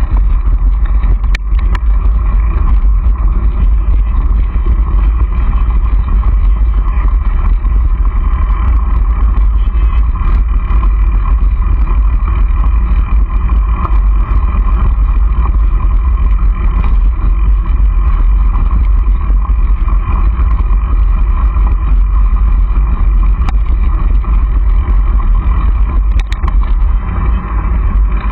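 Steady, loud wind rumble on the microphone of a camera riding along on a moving mountain bike, mixed with the rolling of its tyres and scattered small rattles and clicks over bumps.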